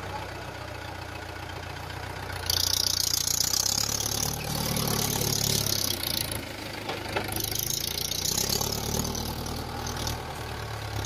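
Mahindra Yuvo tractor's diesel engine running steadily while pulling a trailer through soft sand, working harder for a few seconds twice. A loud hiss comes in about two and a half seconds in and again about seven seconds in.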